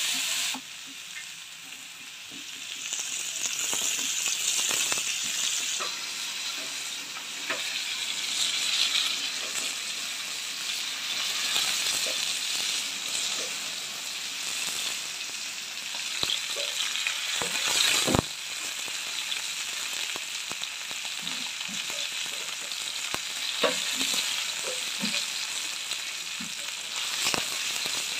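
Whole masala-marinated tilapia (jalebi fish) shallow-frying in hot oil in a flat pan: a steady sizzle with scattered pops and crackles, one sharp pop about two thirds of the way through.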